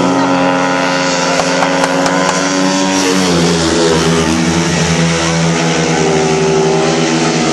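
Several speedway motorcycles racing around the track, their engines running hard with pitch that shifts as they go through the bend, changing notably about three seconds in.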